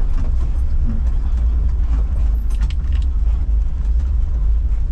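Volkswagen Type 2 bus's air-cooled flat-four engine running as the bus drives slowly over a rough grass and dirt track, heard from inside the cab as a steady low rumble. A few short knocks come around the middle.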